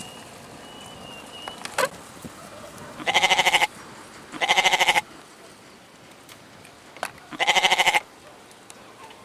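Domestic goats bleating: three loud, quavering bleats of about half a second each, two close together and a third a few seconds later.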